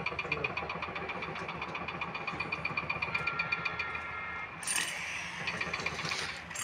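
An engine idling with a rapid, even ticking over a steady low hum. About four and a half seconds in, the ticking gives way to a short rush of noise.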